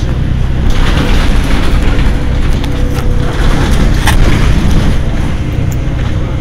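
Mercedes-Benz Citaro city bus engine running at a standstill: a loud, steady, deep rumble that grows louder about a second in.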